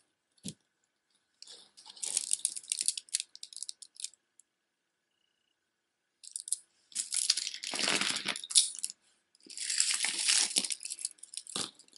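Glass bead necklace clicking and rattling as its beads knock together while it is handled and lifted. This comes in three bursts, about two seconds in, from about seven to nine seconds, and again around ten seconds, the middle one loudest.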